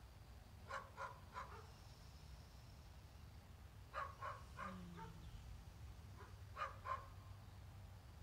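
Faint dog barking in short bouts, three quick barks about a second in, a run of four or five around four seconds in, and two more a little before the end. A low steady hum lies under it.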